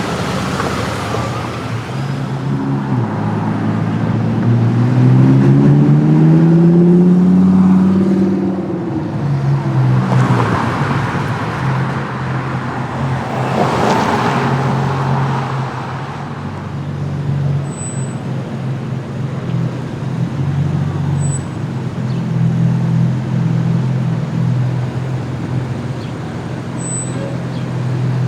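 A sports car engine runs with a steady low drone, then revs up in a rising pitch a few seconds in, the loudest part. Rushing road noise swells twice around the middle, and the engine drone carries on steadily to the end.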